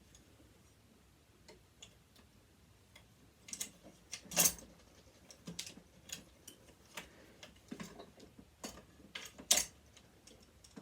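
Irregular small clicks and clinks of a hand tool working on metal sewing-machine parts, with two louder clicks about four and a half seconds in and near the end.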